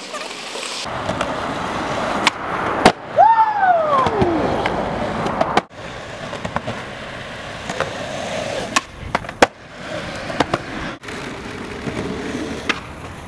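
Skateboard wheels rolling on concrete with a steady grinding rumble, broken by several sharp clacks of boards popping and landing. About three seconds in, a single falling tone sweeps down over a second or so.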